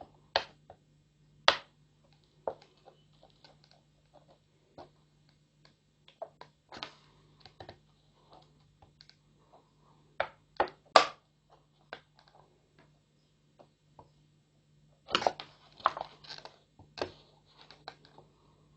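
Scattered light clicks and taps of a thin plastic bottle being handled and worked with a soldering iron tip, with a quicker run of clicks near the end, over a faint steady low hum.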